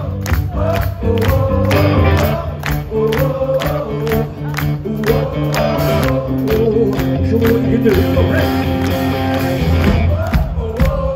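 Live blues-rock band playing: a Fender Stratocaster electric guitar over drums with a steady beat.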